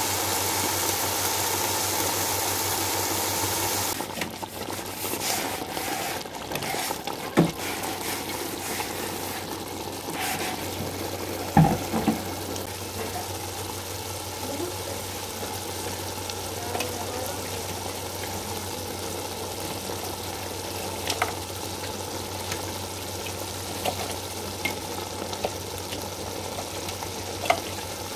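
Onion and green-pepper masala sizzling in a large aluminium pot. After about four seconds it gives way to a tomato gravy with chicken legs bubbling at a boil, with a few sharp knocks of a utensil against the pot, over a steady low hum.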